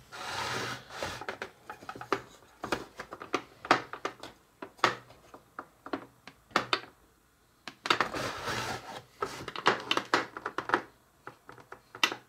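Irregular plastic clicks, knocks and scraping from a Play-Doh Burger Builder toy as its hinged red press arm is pushed down on a purple shaper over green dough and the pieces are handled, with a short quiet pause about halfway through.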